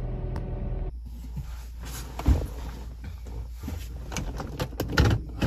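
Scattered clicks and knocks from parts being handled inside a car, with a louder knock about two seconds in and a cluster of knocks near the end, over a low steady rumble. For about the first second, steady background music runs on and then cuts off.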